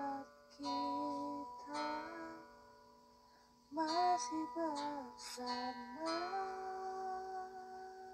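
Background music led by plucked guitar, playing a melody in short phrases with a brief lull about three seconds in.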